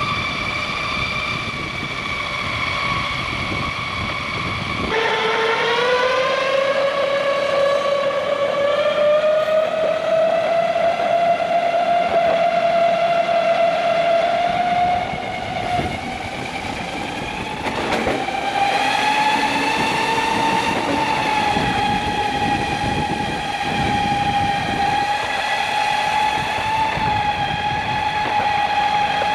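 Ecomobl M24 electric skateboard's motors whining while riding, a steady pitched whine over the rumble of wind and wheels. About five seconds in the whine drops in pitch, then climbs slowly and holds higher as the board speeds up.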